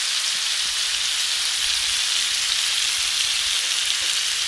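Sea bass steaks sizzling in spiced oil and lime juice in an enamelled cast-iron skillet, still frying just after the heat is switched off. A steady hiss with fine crackling.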